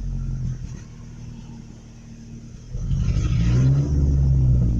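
Pickup truck engine idling roughly and unevenly, then running louder from about three seconds in. The driver takes the poor idle for the truck running out of gas.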